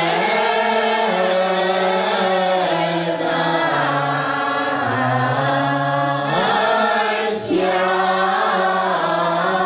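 A woman singing a Buddhist chant into a microphone, slow and in long held notes, with a brief break about seven and a half seconds in.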